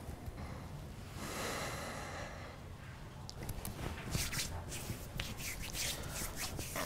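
A breathy exhale, then a run of light, irregular pats as hands tap skincare into the face.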